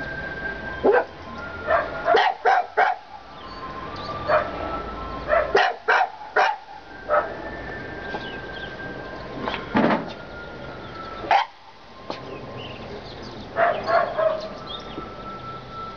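Bichon frisé dogs barking: short, sharp barks at irregular intervals, some in quick clusters of two or three.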